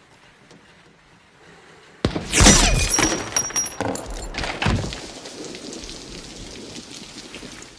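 A sudden loud blast with shattering, ringing debris about two seconds in, a second crash a couple of seconds later, then dying away: gunfire and impacts in a war-film battle scene.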